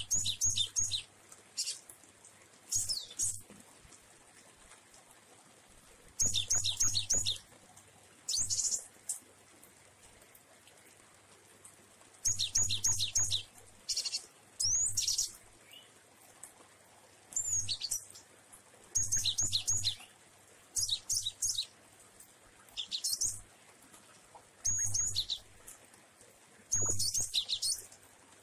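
Caged cinereous tit (gelatik wingko) singing: short phrases of rapid, high repeated notes, each about a second long, coming every two to three seconds.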